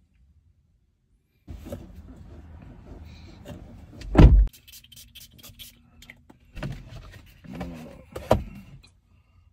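Handling noise inside a car: rustling and shifting in the seat with two loud knocks and a few sharp clicks as the sun visor is pulled down, and a short steady whir in the middle.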